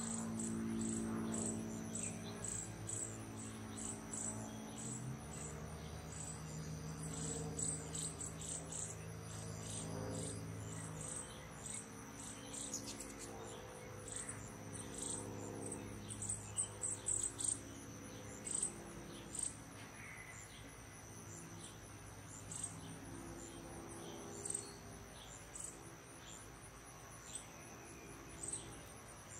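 Evening chorus of insects: a steady high-pitched trill with rapid, evenly pulsed chirps above it, and a few short bird chirps scattered through. A low, steady drone underlies the first eleven seconds or so, then fades.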